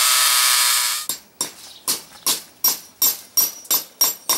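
Corded electric drill running with a 1/8-inch masonry bit into the concrete wall through metal lath, stopping about a second in. Then a hammer taps a steel nail with a washer into the hole: about ten ringing metal strikes, roughly three a second.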